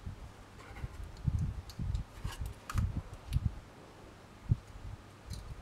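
Handling noise of wire bending with step pliers: several soft low thuds of hands and pliers against the work surface, with a few faint ticks of the metal wire against the pliers.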